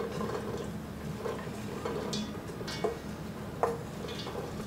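Chopped nuts and floured dried fruit being pushed with a wooden spoon out of a glass bowl into a stainless steel mixer bowl: soft rustling of the falling mix with a few light clicks and taps of spoon and bowl.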